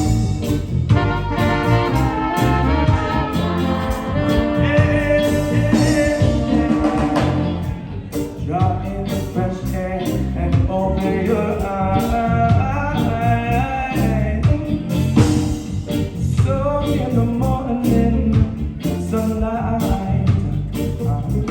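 Live band with a horn section of trumpet, trombone and saxophone over bass, drums, keys and guitar. The horns hold long notes, and a lead voice sings from about the middle on.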